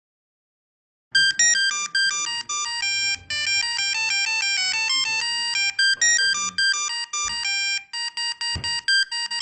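Polyphonic mobile phone ringtone from the mid-2000s: a fast, bright synthesized melody of quick notes, starting about a second in.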